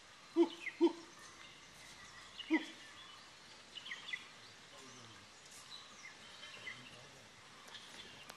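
Outdoor ambience with a few short, sharp bird calls: two close together about half a second in, another at about two and a half seconds, and fainter chirps around four seconds.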